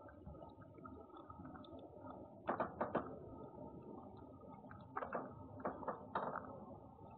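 Sharp taps and clicks from a cat right at the camera's microphone: a quick cluster of about three about two and a half seconds in, and another cluster of about four near the end, over a steady low hiss.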